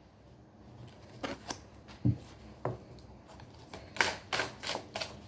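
Deck of tarot cards being shuffled by hand: scattered soft card flicks and slaps, with a quicker run of them about four seconds in.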